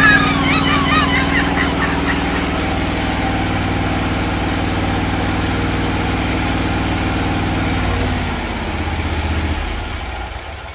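Toro TimeCutter zero-turn riding mower's engine running steadily. About eight seconds in it drops to a lower speed, then dies away near the end.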